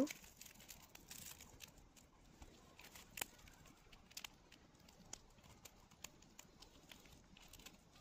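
Sugar glider chewing a cicada: faint, irregular little crunches and clicks as its teeth work through the insect's hard shell.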